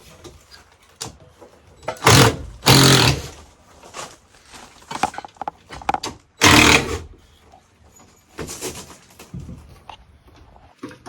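Impact driver running in three short bursts, driving a structural screw with a T30 bit, with quieter knocks and clatter in between.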